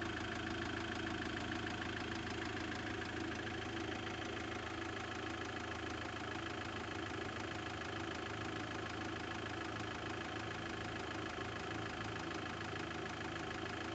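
Iveco F1A four-cylinder turbodiesel idling steadily with a fast, regular ticking knock from the valvetrain, which the owner takes for a faulty hydraulic lifter; it shows up once the oil is warm.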